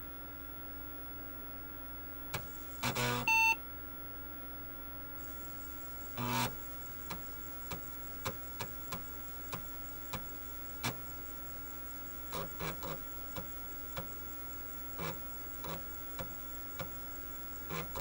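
IBM PCjr booting: a short beep about three seconds in as the power-on self test ends, then its 5.25-inch floppy drive clunks and ticks irregularly as the head seeks and reads the boot disk. A steady hum runs underneath.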